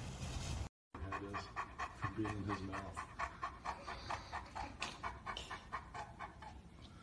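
A large dog panting quickly and rhythmically, about four or five breaths a second, easing off near the end.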